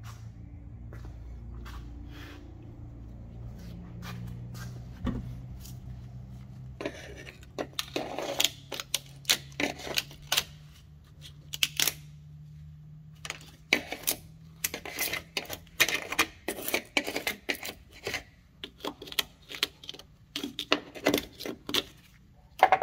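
Rapid, irregular metallic clicks and clinks, like hand tools and small metal parts being handled, growing busier after the first several seconds, over a low hum that fades out partway through.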